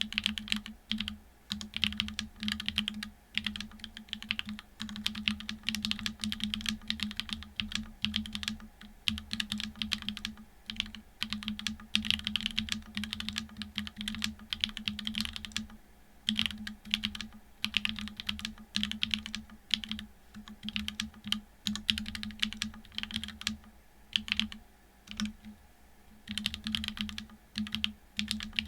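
Typing on a TGR Dolice mechanical keyboard with a carbon fibre plate and unlubed SW x Gateron Deepping switches (4.0 mm travel): quick runs of key strokes with short pauses between them.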